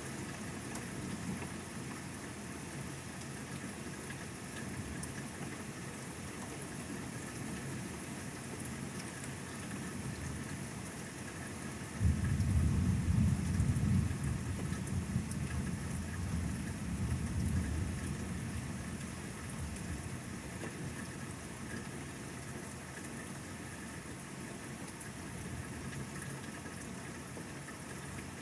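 Steady rain with a sudden thunderclap about halfway through, rumbling for several seconds before dying back under the rain.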